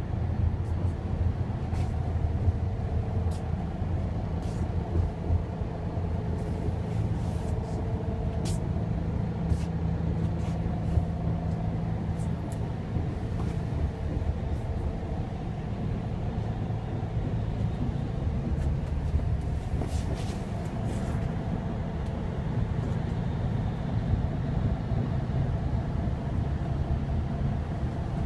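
Kia Granbird Parkway coach's diesel engine idling with the air conditioning running: a steady low hum heard inside the passenger cabin, with scattered faint clicks.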